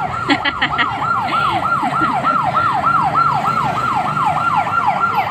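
Electronic yelp siren: a fast rising-and-falling wail repeating about four times a second at a steady level.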